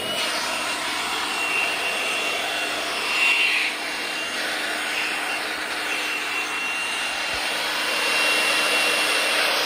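Hercules 20V cordless compact jobsite blower running steadily: a high electric-motor whine over the rush of air from its narrow nozzle, blowing dust out of a concrete floor crack. The rush swells briefly about three seconds in.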